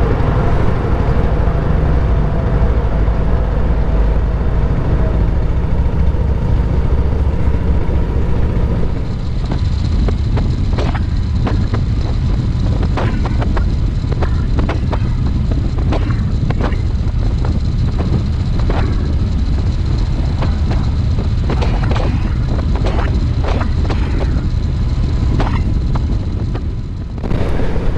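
Harley-Davidson V-twin motorcycle engine running at road speed under a heavy, steady rumble of riding noise. The sound shifts about nine seconds in, after which irregular sharp pops and knocks come through.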